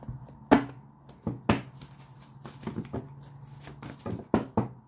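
About eight sharp taps and knocks, irregularly spaced, as things are handled and set down on a tabletop, over a faint steady hum.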